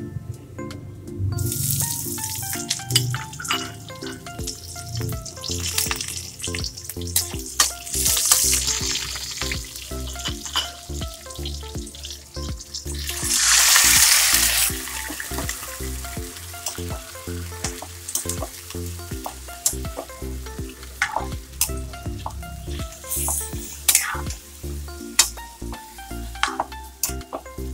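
Garlic and ginger sizzling in oil in an aluminium wok, with spatula clicks against the pan. About halfway through, raw chicken pieces go into the hot oil and set off a loud surge of sizzling, then stirring and sizzling go on. Background music plays underneath.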